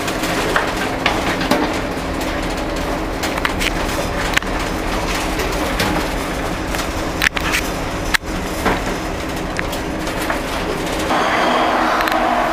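Interior of the ferry M/V Matanuska working through rough seas: a steady low drone from the ship's engines, with irregular creaks and clicks from the ship's fittings as it moves in the swell. About eleven seconds in, a louder rushing hiss joins.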